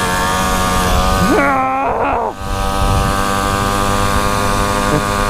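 Pocket bike's small engine held at full throttle, a steady high-revving drone with wind noise over it. A short voice cuts in about a second and a half in.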